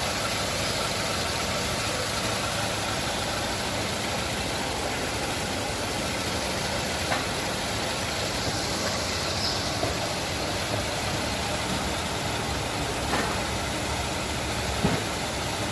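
Nissan Navarra engine idling steadily, with a few faint clicks in the second half.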